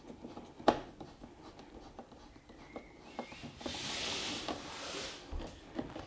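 Small clicks and knocks of screws being driven back in by hand with a screwdriver on a washing machine's plastic and metal casing, with a scratchy rasp lasting about a second and a half midway.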